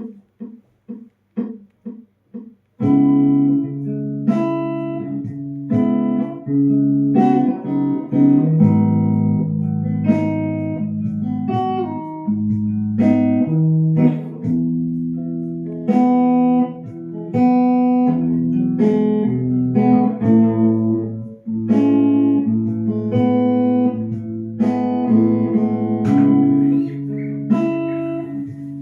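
Instrumental music of plucked guitar notes. It opens with short, evenly repeated muffled notes, and the full, bright guitar part comes in about three seconds in and plays on as a steady melody.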